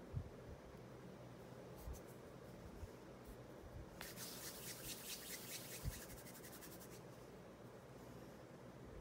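Hands working polymer clay on a silicone mold: a few soft low bumps, and a quick scratchy rubbing for about three seconds in the middle.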